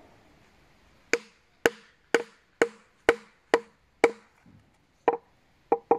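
Mallet knocking a hazel leg into a hole bored in an ash log: seven sharp knocks about two a second, a short pause, then three more. The tone of each knock signals whether the leg is still entering the hole or has reached the bottom.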